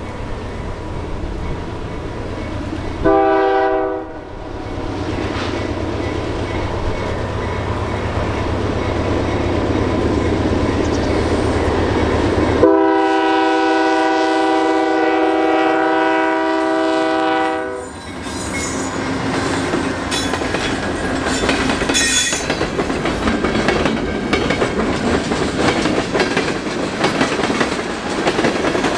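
GE C44-9W freight locomotive sounding its Nathan K3L three-chime air horn as it approaches. It gives a short blast about three seconds in, then a long blast of about five seconds starting around thirteen seconds in, over a low rumble. The train then rolls past close by, freight car wheels rumbling and clacking over the rail joints.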